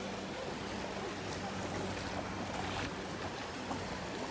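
Beach ambience: small waves lapping at the shore, a steady wash with faint distant voices of bathers, over a faint low steady hum.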